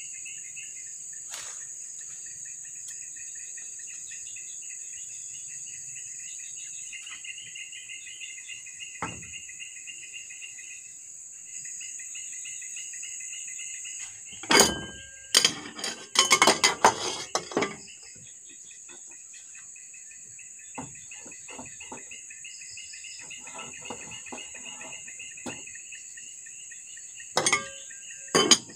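Metal cooking pot and lid clattering against a kerosene wick stove in a cluster of sharp clanks about halfway through and a few more near the end. Insects chirr steadily throughout.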